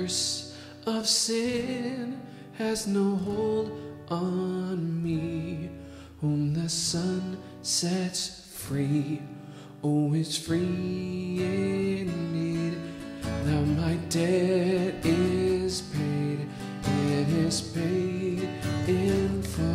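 A man singing a slow song while accompanying himself on guitar.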